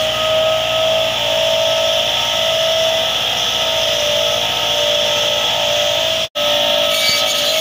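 Massey Ferguson 385 tractor running with its front-mounted rotary disc tree trimmer spinning: a steady whine over a loud hiss of blades and engine. The sound cuts out for an instant about six seconds in.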